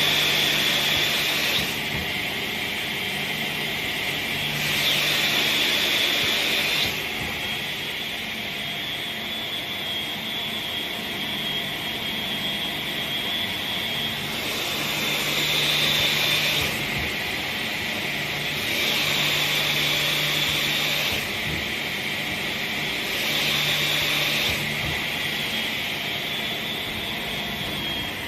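REMA DMDK-50A crosscut saw, its 50 cm blade spinning with a steady high whine. About five times it gets louder for roughly two seconds as the pneumatically fed blade cuts through a workpiece.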